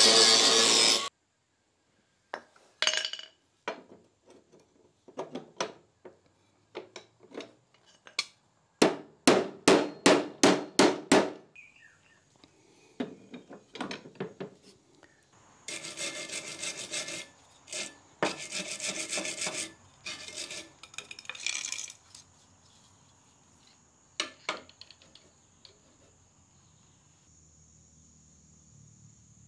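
Background music cuts off about a second in. Then hand work on the steel mower deck: clicks and knocks, a quick run of about eight scraping strokes, then longer stretches of rhythmic scraping and rubbing on metal.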